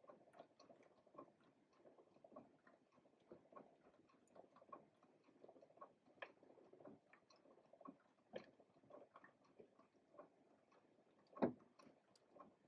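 Faint, irregular small clicks and ticks from a moving mechanical automaton figure and its works, with one louder knock near the end.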